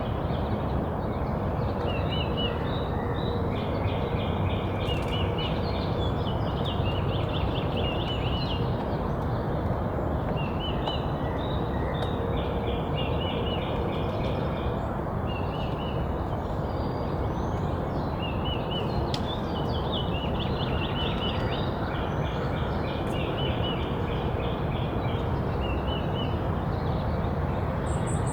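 Small songbirds at a backyard feeder calling, giving quick high chirps in rapid runs that come back every few seconds, over a steady low rumble.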